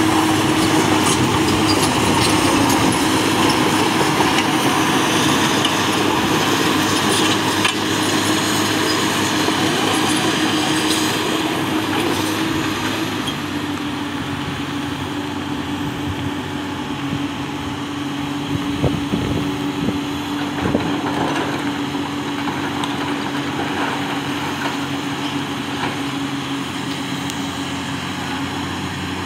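Komatsu PC200 hydraulic excavator's diesel engine running under working load as the boom and bucket swing, with a steady whine held throughout. Its loudness eases slightly after about twelve seconds, and a couple of short knocks come about three-quarters of the way through.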